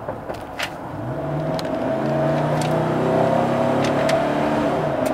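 2014 Cadillac Escalade's V8 engine accelerating hard, heard from inside the cabin: from about a second in it grows louder and rises in pitch as the revs climb toward 4,000 rpm. A few faint clicks come through over it.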